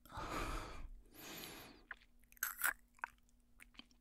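Two breaths close to the microphone, followed by several short, soft mouth clicks.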